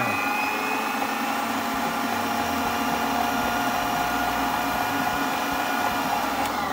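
Essenso Professeur stand mixer's electric motor and gearbox running at a steady speed with an even whine. Its broken drive gear has been rebuilt with silicone and turns without skipping.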